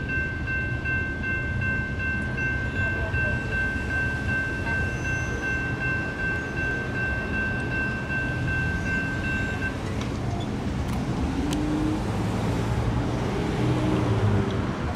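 Safetran Type 2 electronic crossing bell ringing steadily with a high, even tone while the gates lift, cutting off suddenly about ten seconds in as the crossing deactivates. Over a low rumble, road vehicles then pull away across the tracks.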